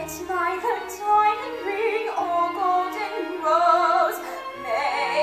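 A woman singing a musical-theatre solo in a sustained, operatic style with vibrato, over instrumental accompaniment.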